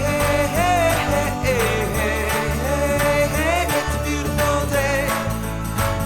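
Upbeat pop song with a steady beat, bass and a melodic lead line between the sung verses.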